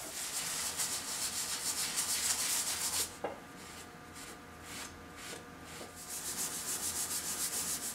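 Small brush scrubbing the painted canvas of an antique steamer trunk with detergent water, in quick back-and-forth strokes. The scrubbing eases off about three seconds in and picks up again near the end.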